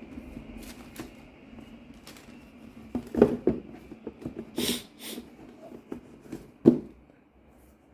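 Sneakers and their cardboard shoebox being handled: scattered knocks and rustles, with a loud thump about three seconds in and another near the end.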